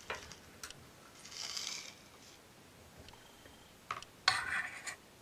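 Handling noise: a few light clicks and a soft scrape, then a louder scraping rustle near the end, as a small container is handled while coaxing a tarantula sling back into it.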